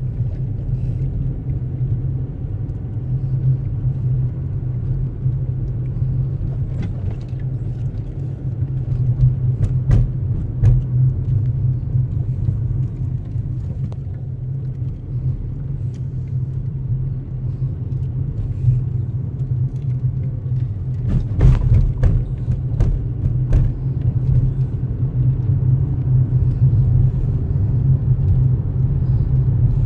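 Steady low rumble of a car's engine and tyres, heard from inside the moving car, with a few short knocks and rattles, most of them bunched together about two-thirds of the way through.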